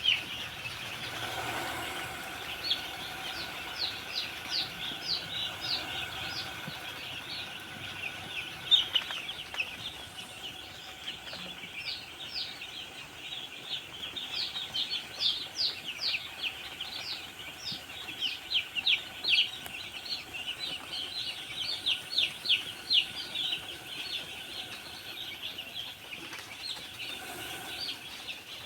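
A flock of young chicks peeping constantly: a dense chorus of short, falling, high-pitched cheeps, with a faint steady hum underneath.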